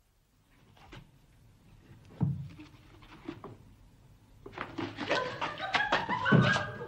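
A few soft, scattered knocks and handling sounds, then laughter and voices starting about two-thirds of the way through and growing louder.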